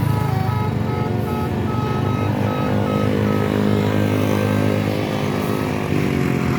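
Tour bus telolet Basuri horn playing a jingle of short notes, dying away after about two seconds, over the steady drone of a diesel bus engine. The engine holds a steady pitch and slides near the end.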